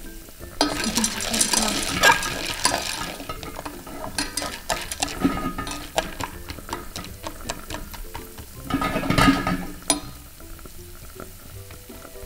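Popcorn kernels stirred with a wooden chopstick in melted butter in a stainless steel pot: the kernels clicking and scraping against the metal over a butter sizzle. The stirring is busiest about a second in and again around nine seconds in, with scattered clicks in between.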